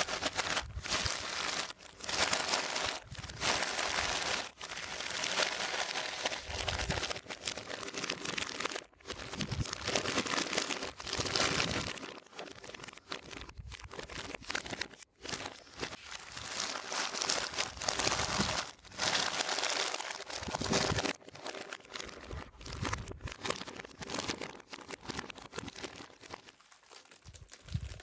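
Toy packaging being handled and opened, crinkling in irregular bursts with brief pauses between them.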